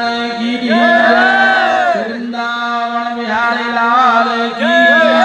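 Hindu aarti hymn sung loudly over held steady tones, its phrases rising and falling in pitch, played through the ghat's loudspeakers.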